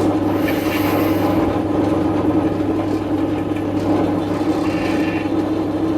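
Metal lathe running steadily with a constant motor hum, machining spacers.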